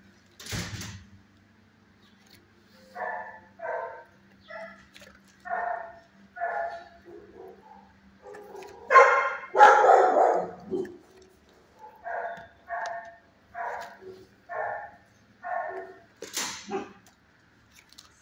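A dog in the shelter kennels barking over and over, roughly one bark a second, with the loudest barks in the middle. A short sharp clatter comes just after the start and another near the end.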